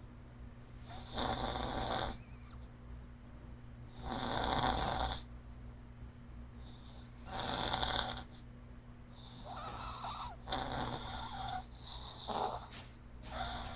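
A small pet dog snoring in its sleep, with a snore about every three seconds that comes shorter and quicker in the second half.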